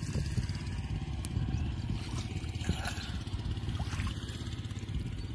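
Small splashes and gurgling of shallow water as hands feel around inside bamboo polo fish traps pressed into the water, over a steady low rumble.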